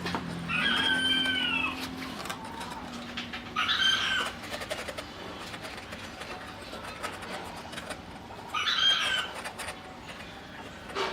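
Chickens calling outdoors: one longer, bending call about half a second in, then two shorter calls about four and nine seconds in. A low machine hum fades away over the first few seconds.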